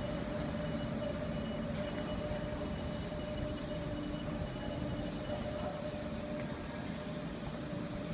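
Heavy-lift ship's crane machinery running: a steady low drone with a constant mid-pitched whine over it.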